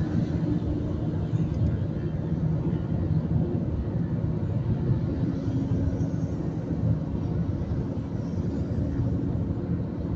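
Steady engine drone with road and wind noise from a vehicle cruising at speed on a highway.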